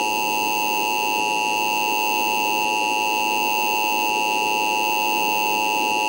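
Emergency Alert System attention signal: a steady two-tone alarm (853 and 960 Hz) held without a break, with shrill higher overtones.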